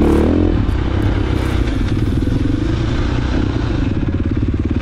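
KTM 450 XC-F dirt bike's single-cylinder four-stroke engine running under way on a sandy trail. The revs rise briefly at the start, then hold fairly even with small changes in throttle.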